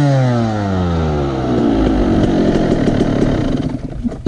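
Off-road motorbike engine winding down steadily in pitch after a rev as the throttle is closed, then dropping to a quieter idle. A single sharp pop about four seconds in is an exhaust backfire.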